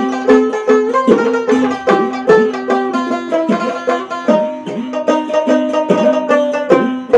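Background music: a quick, steady run of plucked-string notes.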